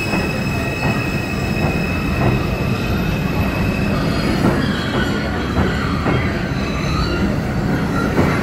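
R142 subway train pulling out of the station past the platform: a steady rumble with wheel clacks over the rail joints about once or twice a second and a high wheel squeal.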